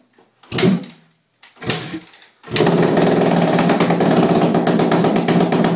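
Yamaha YZ250F dirt bike's single-cylinder four-stroke engine with no muffler: two short loud bursts, then about two and a half seconds in it fires up and runs loud and steady at a held speed.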